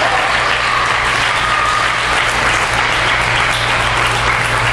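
Spectators clapping steadily at the end of a table tennis rally.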